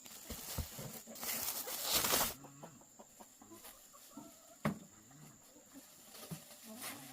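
Chickens clucking, with a second-long burst of noise about a second in and a sharp knock near the middle.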